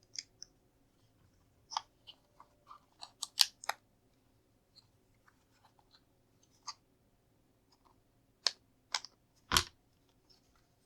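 Plastic LEGO pieces being handled and pressed onto a model, giving scattered sharp clicks. There is a quick cluster of clicks about three seconds in and three louder snaps near the end, the last the loudest.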